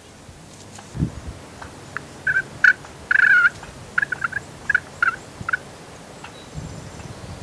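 Wild turkey gobbling: a string of short calls with one longer rattling gobble a little past three seconds in. A low thump about a second in.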